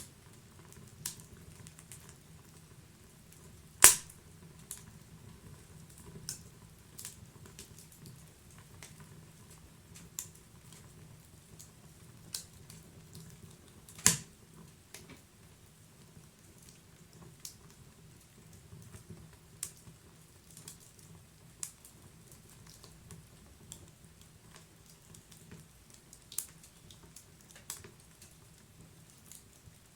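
Wood fire burning in a fireplace: a low steady rush of flame under frequent sharp crackles and pops of burning wood, with two loud pops about four seconds and fourteen seconds in.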